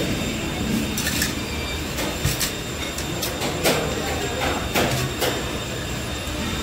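Steady restaurant background noise with scattered short clinks and clatters of steel tableware.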